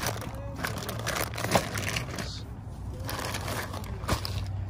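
Plastic zip-top bags of small toy cars crinkling as they are picked up and handled, with two sharp clicks, about a second and a half in and near the end.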